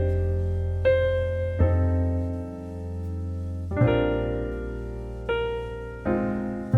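Background music: slow electric-piano chords over a steady bass, a new chord struck every one to two seconds.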